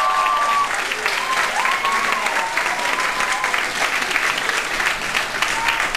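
Audience applauding in dense clapping, with a few voices calling out; the dance music cuts off under a second in.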